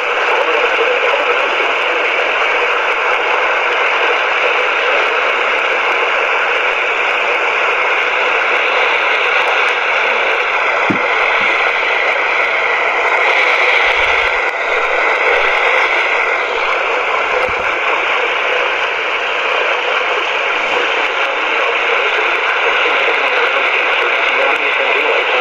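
Steady radio static: the hiss of a receiver tuned to a weak or empty channel, swelling a little in the middle.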